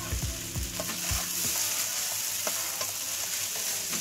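Schezwan veg fried rice sizzling in a hot wok while a wooden spatula stirs and turns it, with a few short knocks and scrapes of the spatula against the pan in the first half.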